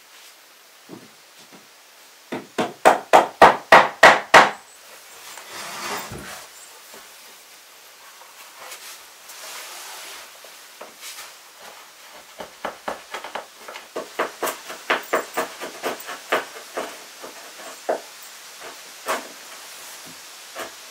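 A hammer tapping on pine floorboards in quick runs: a loud burst of about eight blows a couple of seconds in, then, from about halfway on, a longer run of lighter taps, about three a second.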